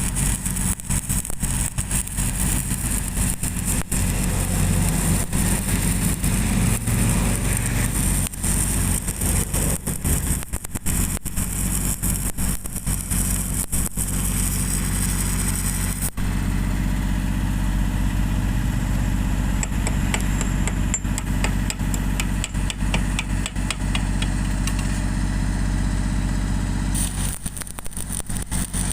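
Stick arc welding on a steel water pipe: the arc crackles and hisses over the steady drone of an engine running. The crackle stops about halfway through and starts again near the end.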